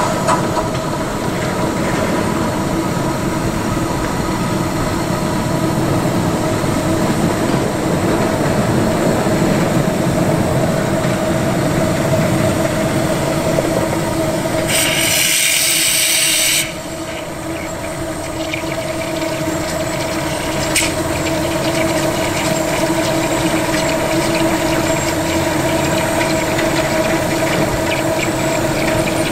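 A one-foot gauge 0-4-2 tank steam locomotive in steam, with a steady running noise and a hum. Halfway through there is a loud hiss lasting about two seconds.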